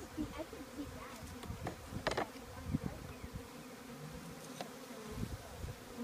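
Steady buzzing hum of a package of honeybees in its screened shipping box. Light knocks and one short, louder scrape about two seconds in come from a hive tool working the package lid to get at the queen cage.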